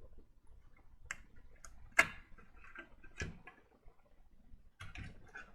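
Scattered clicks and knocks of a power supply's circuit board and metal case being handled as the board is lifted out, with one louder knock about two seconds in and a quick cluster of clicks near the end.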